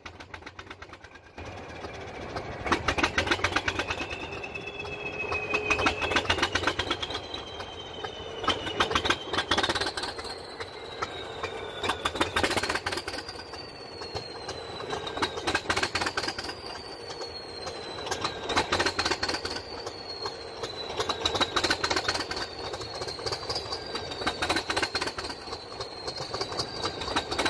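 A British Rail Class 20 locomotive's English Electric diesel engine cold-starting. A fast clatter catches into loud running about a second and a half in. The engine then runs unevenly, its loudness swelling and sagging every two to three seconds, with a high whistle rising and falling along with it.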